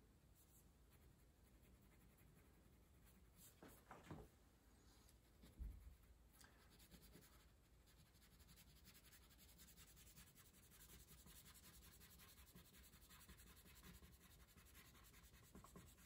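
Faint rubbing on paper as wax crayon colour is worked and blended on a drawing, with a soft low bump about six seconds in.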